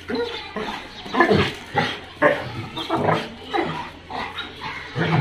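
Several dogs vocalizing during rough play: a string of short pitched play noises, about two a second.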